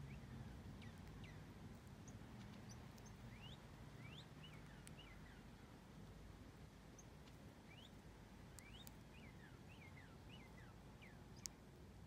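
Faint, scattered bird chirps, many short calls each sliding quickly up or down in pitch, over a low outdoor background rumble; a single sharp tick near the end.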